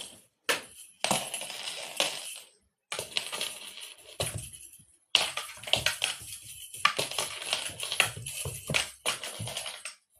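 Irregular jingling and rattling of a cat toy being batted and tossed about, in uneven bursts with brief silent gaps.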